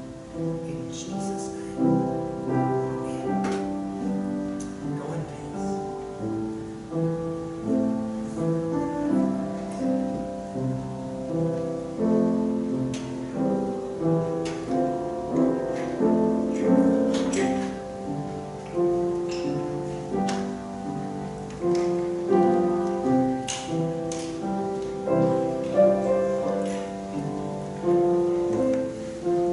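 Piano playing instrumental music, chords struck one after another and left to ring.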